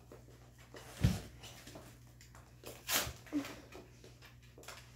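Foil trading-card booster pack being torn open and handled, with rustling and a sharp crinkling rip about three seconds in. A low thump comes about a second in.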